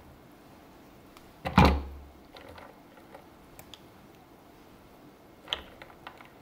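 Glassware being handled while lemon slices and glass straws are set onto the drinks: a loud dull knock about a second and a half in, a few small clicks after it, and a short ringing clink of glass near the end.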